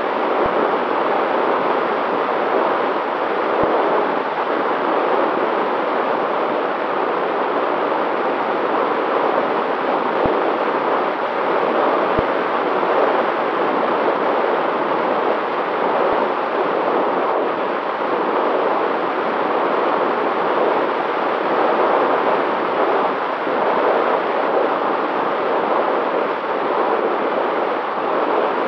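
Steady rush of airflow and propeller noise from an FPV drone in flight, picked up by its onboard camera microphone, with a faint steady motor tone underneath.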